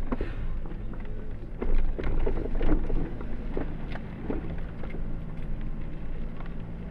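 A Jeep's engine running steadily at low speed on a muddy, rutted forest track, with several knocks and thuds as the vehicle jolts over the ruts.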